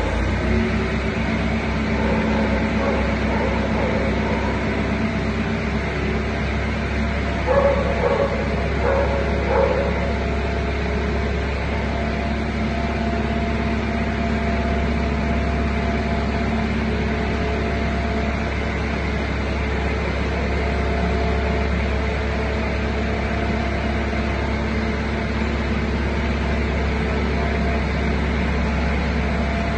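Clever 150 mm slotting machine running, its electric motor and ram drive giving a steady hum with several constant tones. About eight seconds in, three or four short, louder calls stand out over it within about two seconds.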